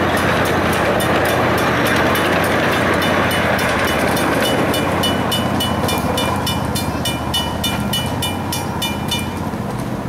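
Ride-on 7.5-inch gauge miniature train running past on its track, the rumble and clatter loud at first and fading as it moves away. From about three seconds in, a crossing signal bell dings in rapid, evenly spaced strokes, stopping shortly before the end.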